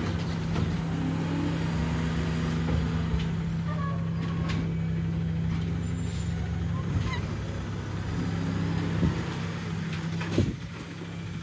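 Automated side-loader garbage truck running at steady revs as its hydraulic arm lifts and empties a wheeled bin, a low even engine hum with a few clanks, the loudest about ten seconds in.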